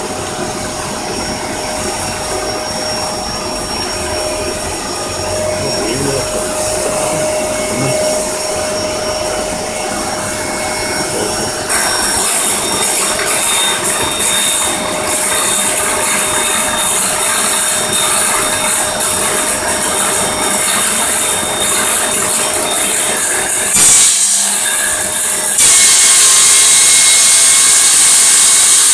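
Vacuum cleaner running steadily on the dust-extraction hose of a homemade table circular saw, with a steady whine. About twelve seconds in the sound turns brighter and louder as the saw runs too. After a short dip, it is loudest near the end.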